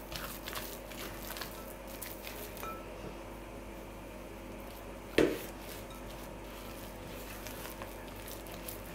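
Silicone spatula stirring and scraping a soft, sticky dough around a glass mixing bowl, with one sharp knock against the bowl about five seconds in.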